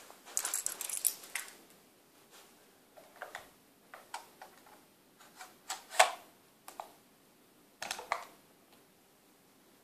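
Clicks and knocks from handling a Sony PS-F5 portable linear-tracking turntable, its plastic case and controls being worked by hand. A quick flurry of clicks comes first, then single clicks every second or so, the loudest about six seconds in, stopping after about eight seconds.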